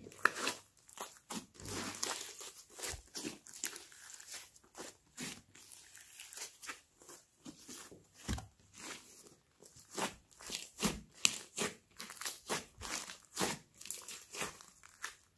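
Hands squeezing, folding and pinching a large batch of thick pink clay slime mixed with foam beads. It makes a fast, irregular run of sharp sticky clicks and crackles.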